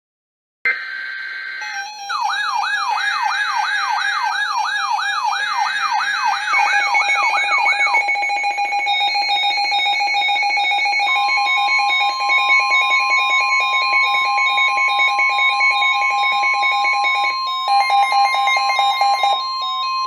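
Several NOAA weather radios sounding their alert alarms at once for a Winter Storm Warning, layered electronic tones. A warbling siren sweep repeats about twice a second for the first several seconds, then rapid beeping continues. About halfway through, a steady single tone near 1 kHz joins in, like the NWS 1050 Hz warning alarm tone relayed by the radios.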